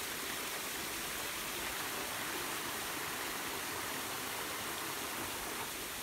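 Steady hiss of falling water from a waterfall coming down a rock face onto the boulders below.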